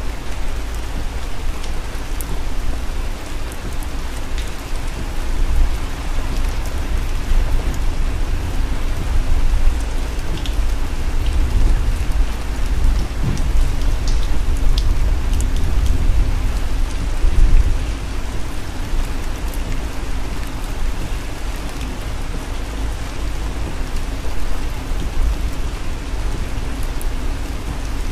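Rain pattering on a car's windshield and roof, heard from inside the cabin, with scattered drop ticks over a steady low road rumble from the moving car.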